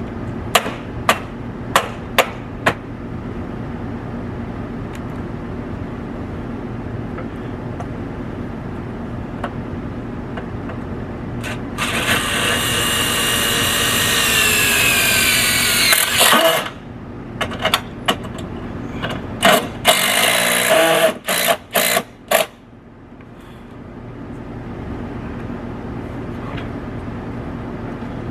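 Cordless drill run overhead: one long run of about four seconds whose whine falls steadily in pitch, then several short bursts of the drill. A few sharp knocks come before it.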